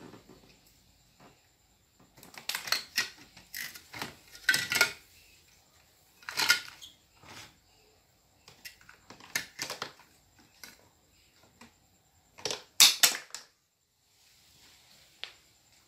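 Plastic toys and a plastic basket clacking and rattling in irregular bursts as a baby monkey rummages through them, the loudest clatter near the end.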